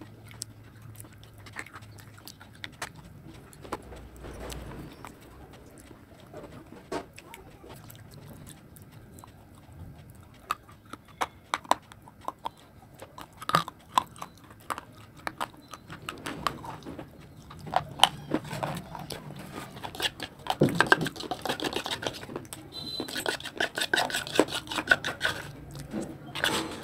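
Close-up eating sounds: chewing and wet mouth noises as a soft paste is spooned from a bowl, with many sharp clicks of the metal spoon against the bowl and teeth. The clicks come sparsely at first and grow busier and louder in the second half.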